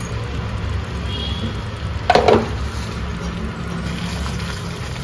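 Thick masala paste sizzling and bubbling in oil in a steel pan while a spatula stirs it, with one brief louder scrape about two seconds in.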